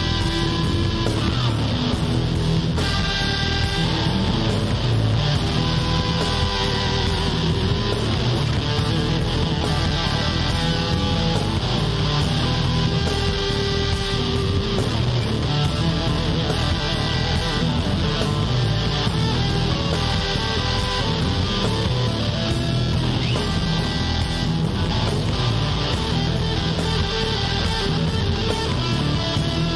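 Instrumental blues-rock background music with guitar and a steady beat.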